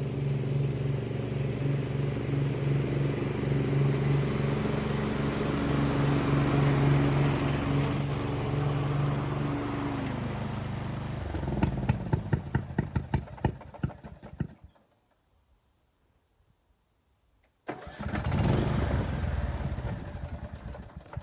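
Riding-mower engine running steadily, then switched off about 11 seconds in, popping sharply several times as it runs down: backfiring on shut-down, which the owner suspects comes from too much back pressure from an exhaust pipe reaching too far into the muffler. After a few seconds of near silence, a second short burst of engine sound dies away with more pops.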